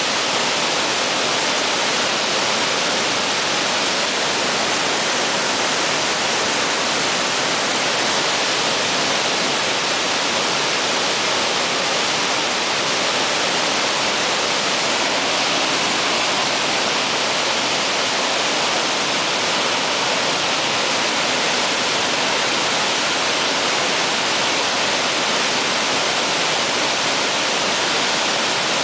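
Steady, unbroken rush of a waterfall about 35 m high pouring into its plunge pool, heard close to the base.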